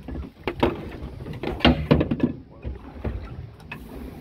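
Scattered knocks and clunks of fishing gear and a harpoon pole against a small boat's gunwale, over a low steady rumble of wind and water.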